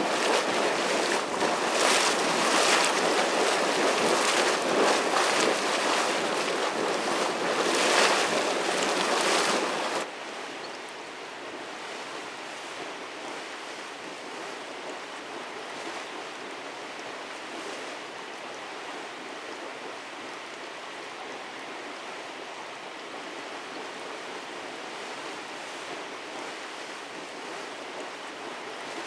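Hot spring water rushing over mineral deposits in a steady noisy flow. It drops abruptly about ten seconds in to a quieter, even rush.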